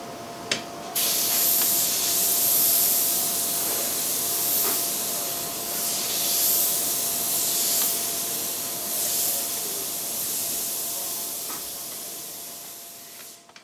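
Airbrush spraying in repeated passes: a high hiss of air and paint that swells and eases as the trigger is worked, starting after a sharp click about a second in and fading away near the end.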